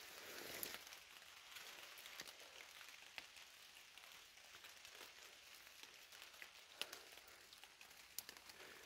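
Near silence: faint outdoor hiss with a few soft scattered ticks and rustles.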